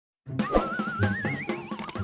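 Music starting about a quarter second in, with a regular beat and a wavering, vibrato tone that climbs steadily in pitch.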